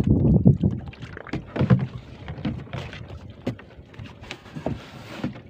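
Irregular knocks and bumps of someone moving about and handling gear in a small open boat on the water, with water sloshing and dripping. The louder knocks come near the start and again at about two and three and a half seconds in.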